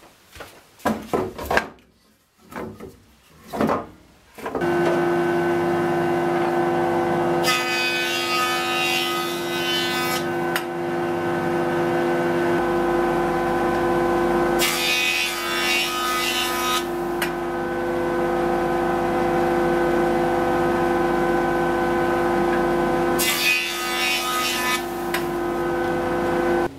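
Weathered timber fence posts knocked and shifted on a cast-iron machine table, then from about four seconds in a jointer runs with a steady hum. Three times an old post is fed over its cutterhead, each pass a harsher planing noise lasting two to three seconds.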